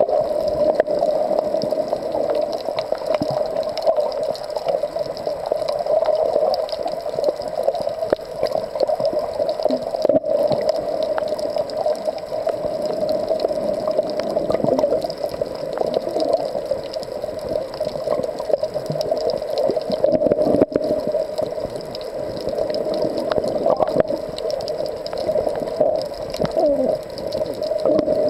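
Underwater noise picked up through a waterproof compact camera held below the surface: a steady, muffled rush of water with occasional gurgles and scattered faint clicks.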